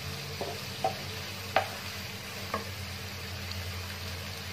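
Wooden spatula stirring diced chicken in a nonstick wok, knocking and scraping against the pan four times in the first two and a half seconds, the loudest about a second and a half in, over a steady sizzle of the meat sautéing.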